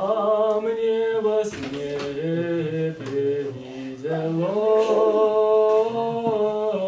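Several voices singing Russian Orthodox chant a cappella in harmony: slow, held notes that move together in steps, growing fuller from about four seconds in.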